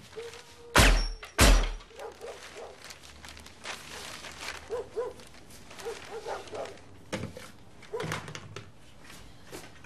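Two loud, heavy thunks about a second in, half a second apart, followed by softer scattered knocks and small chirping squeaks.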